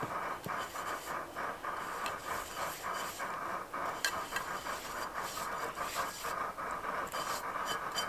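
Optimus Svea liquid-fuel stove burning with a steady hiss, with irregular crunching and scraping as hands scoop and pack snow into a cup.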